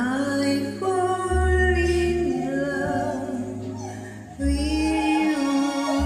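Slow ballad karaoke track: a long held melody line that wavers slightly in pitch, over deep bass notes that come in about a second and a half in and again near the end.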